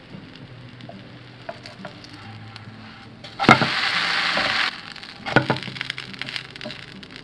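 An uttapam frying in a non-stick frying pan with a faint crackle. A spatula flips it about three and a half seconds in, and it lands with a knock and a loud sizzle that lasts just over a second. A second knock of the spatula on the pan follows about two seconds later.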